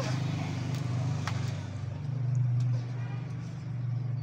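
A vehicle engine running steadily close by, a low hum that swells slightly about two seconds in, with a few sharp taps over it.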